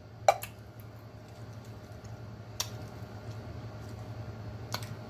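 A few sharp clicks and taps from a metal Vienna sausage can being handled, the loudest about a third of a second in, over a low steady hum.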